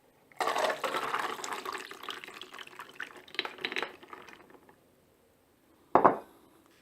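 Water pouring off a bowl of soaked raw peanuts, the wet nuts clattering, for about four seconds as the peanuts are drained straight after a brief soak. About six seconds in there is a single short knock.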